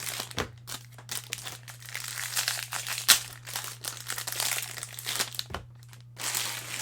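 Foil baseball card pack wrappers crinkling and tearing as packs are opened and the cards are handled, in irregular rustles with a sharp crackle about three seconds in.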